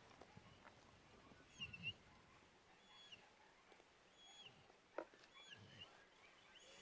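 Faint bird calls: short, clear, high notes that fall off at the end, repeating about once a second over near silence, with a couple of soft low thuds.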